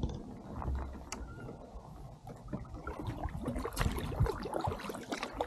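Kayak paddle strokes on calm water: the blades dip in with soft splashes and water trickles and drips off them. The small splashes and drips get busier in the second half.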